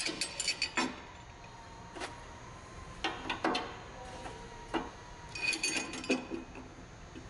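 Metal clinks and taps as a steel bracket assembly with U-bolts is handled and set against a pickup truck's frame rail. The clicks come in scattered small clusters, and one near three-quarters of the way in rings briefly.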